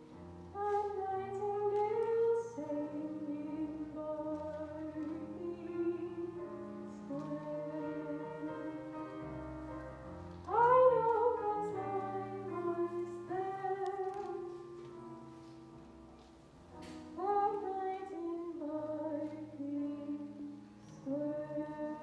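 Young female vocalist singing a slow, sustained ballad solo into a microphone, over a quiet accompaniment of held low notes. Her loudest phrase comes in about halfway through, with another strong entry near the end.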